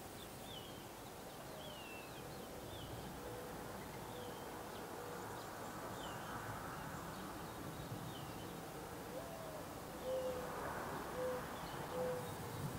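Gambel's quail chicks peeping: thin, high, falling peeps about once a second while the hen broods them. Low cooing notes from another bird come in twice, each a short run of steady notes; the second run opens with a rising note and is the loudest sound, near the end.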